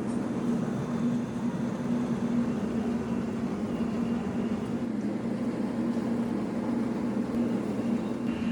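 Steady industrial machinery running: a continuous rumble with a constant low hum.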